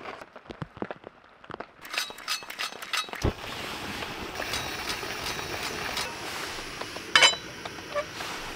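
Camp cooking gear being handled: a quick run of sharp metallic clinks and clicks ending in a thump, then a steady hiss, with another burst of clinks about seven seconds in.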